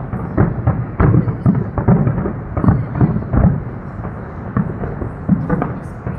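Fireworks bursting overhead, many deep booms in quick irregular succession that thin out over the last couple of seconds.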